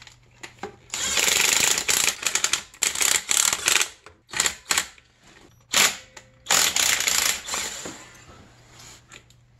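Cordless drill-driver running in bursts with a fast rattle, driving bolts on a snowmobile engine: one burst of about three seconds, then several shorter ones, dying away near the end.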